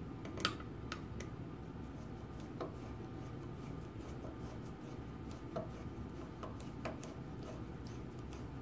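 Scattered faint metallic clicks and ticks as a screwdriver turns small screws into a steel retainer plate on a Linotype knife block, over a steady low background hum.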